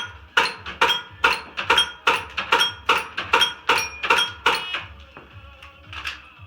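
Rapid string of airsoft race-gun shots, about a dozen at roughly two and a half a second, each a sharp crack with a short metallic ring of BBs hitting steel target plates; one more shot follows after a pause near the end. Background music plays underneath.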